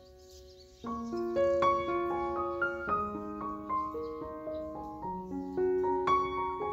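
Background piano music: a gentle melody of single ringing notes that dips almost to quiet at the start and picks up again just under a second in.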